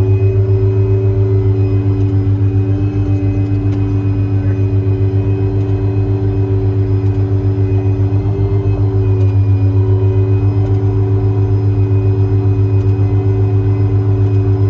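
Hydraulically driven air compressor on a service truck body running steadily, with a rapid, even pulsing and the truck's engine running under it.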